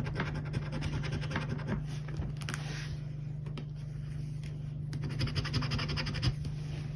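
Scratchcard being scratched: the coating is scraped off in quick, rapid strokes that thin out briefly about halfway through and then pick up again, over a steady low hum.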